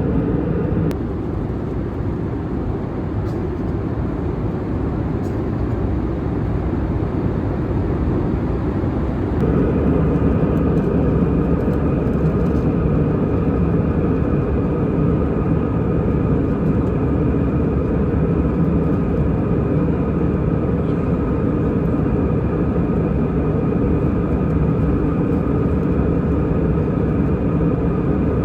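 Airbus A320 engine and airflow noise heard inside the passenger cabin, a steady deep rumble. About nine seconds in it grows louder and a steady engine whine comes in on top.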